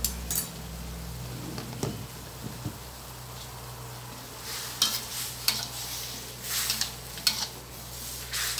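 Metal spatula scraping and clinking against a stainless steel wok as pork and cauliflower are stir-fried, over a steady sizzle. The strokes come irregularly, sparse at first and quicker and busier in the second half.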